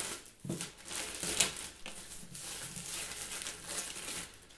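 Clear plastic shrink-wrap being pulled off a hardback book, crinkling and crackling, with a few sharper crackles in the first second and a half.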